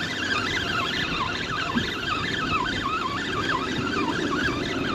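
Spinning fishing reel being cranked to bring in a hooked fish: a wavering gear whine that rises and falls quickly and repeatedly, over steady wind and water noise.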